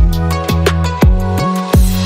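Background music: an electronic beat with deep kick drums that drop in pitch, about two a second, over a steady bass line and light ticking hi-hats.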